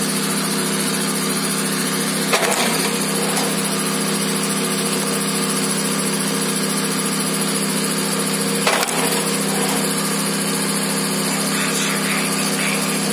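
Gasoline kinetic log splitter's small engine running steadily, with two sharp knocks about six seconds apart as the flywheel-driven ram slams through logs and splits them.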